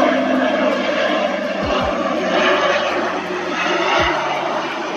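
ATR 72 turboprop's engines and propellers droning steadily as the airliner touches down and rolls along the runway.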